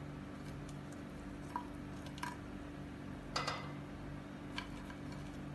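Fried chicken drumsticks set down onto cooked rice in a stainless steel pot: a few soft, short squishy contacts with faint metallic ticks, the loudest about three and a half seconds in, over a steady low hum.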